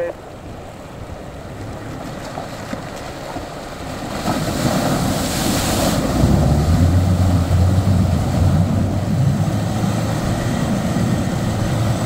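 Mitsubishi L200 pickup wading into a deep, fast river: water rushes and splashes hard against the truck as it pushes a bow wave. From about six seconds in, the engine drones steadily under load as the truck ploughs through.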